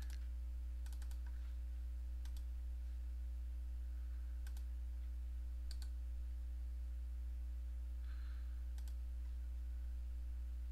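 Computer mouse clicking: scattered sharp single and double clicks a second or more apart, over a steady low electrical hum.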